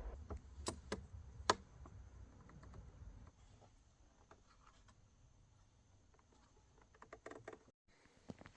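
Faint scattered clicks and taps of small wooden parts being handled and set down, with three sharper knocks in the first second and a half and a quick cluster of taps near the end.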